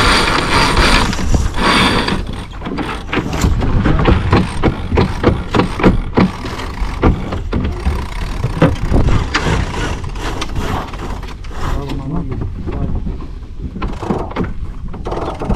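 Yacht sheet winch being worked after a tack, its ratchet pawls clicking in quick runs, over a steady low wind rumble on the microphone. A rushing hiss fills about the first two seconds, as the sheet is eased.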